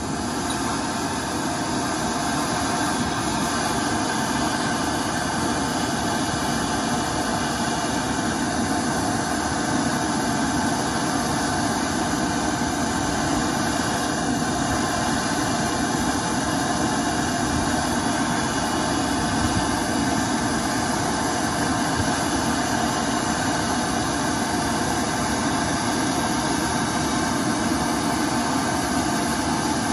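Small handheld gas torch burning steadily with a constant hissing rush, its flame held on a seized exhaust oxygen sensor to heat it loose.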